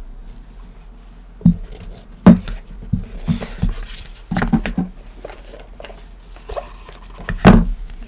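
Cardboard box and packaging handled with gloved hands: a series of dull knocks and taps with rustling between them, the loudest about two seconds in and again near the end.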